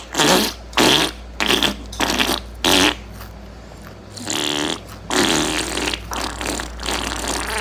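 Crunchy chips being chewed close to the microphone: a run of sharp crunches, about three a second, then softer, more continuous chewing.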